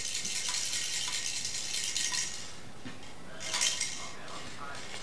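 Light, high rattling or jingling of small hard objects for about the first two seconds, then a short burst of it again about three and a half seconds in.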